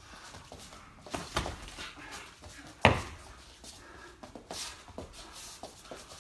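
Light sparring with boxing gloves: scattered slaps and thuds of gloves striking and blocking, with one sharp slap about three seconds in the loudest.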